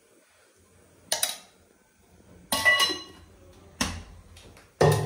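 Metal spoon and steel kitchen vessels clinking: four sharp knocks roughly a second apart, the second one ringing briefly.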